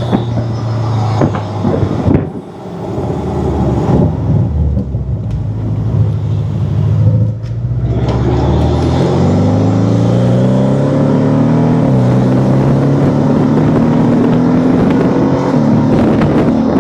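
Porsche 718 Cayman's turbocharged flat-four with a RaggDoll Motorsports turbo inlet pipe, heard from inside the cabin while driving. The engine note dips briefly twice, then rises in pitch through the gears, dropping at each shift.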